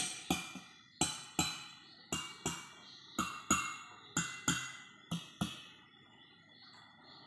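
Metal spoon tapping six water-filled glass tumblers in turn, two taps on each glass, about a pair of taps a second. Each glass rings briefly at its own pitch, set by the height of water in it. The tapping stops about five and a half seconds in.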